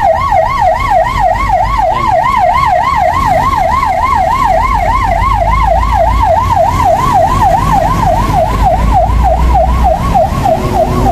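Emergency vehicle siren in fast yelp mode, its pitch swinging up and down about three to four times a second, over the low rumble of road traffic.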